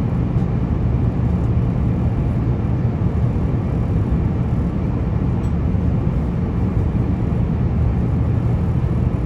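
Steady deep cabin noise of an Airbus A350-900 in cruise: the constant drone of airflow and engines through the fuselage, unchanging throughout.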